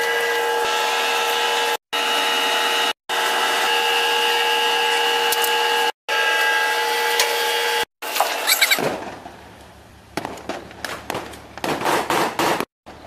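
Loud, steady engine or machinery noise holding several fixed tones, cut off abruptly a few times. About nine seconds in it drops away to a quieter background, broken by a run of sharp cracks and knocks.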